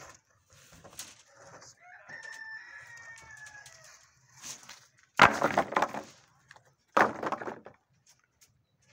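A rooster crowing in the background about two seconds in, then two loud clattering crashes, about five and seven seconds in, as wooden planks are dropped onto a pile.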